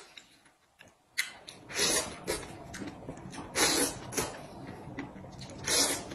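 Noodles being slurped from a bowl, in about six short, noisy slurps spread over a few seconds after a quiet first second.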